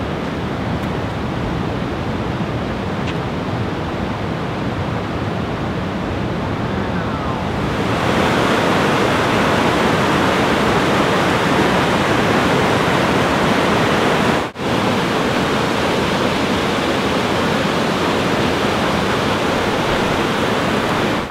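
Mountain waterfall cascading through a rocky gorge: steady rushing water that gets louder about eight seconds in, with a brief dropout a little past halfway.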